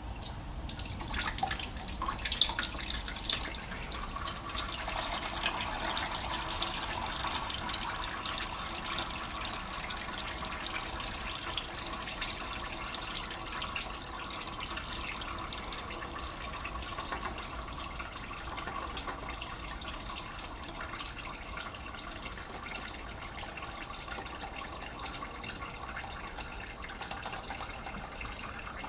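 Used engine oil draining from a 2008 Honda Civic 1.8's sump into a drain pan: a steady pouring, splashing stream, a little louder in the first few seconds.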